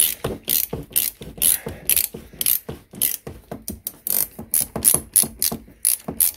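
Ratchet wrench clicking in quick repeated strokes, about four clicks a second, as the clamp bolt on a motorcycle's upper triple clamp is loosened so the steering head nut can turn freely.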